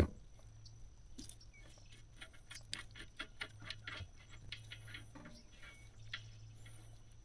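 Faint, irregular clicks and light metal taps as a trailer wheel hub assembly is worked off its axle spindle by hand, over a faint steady low hum.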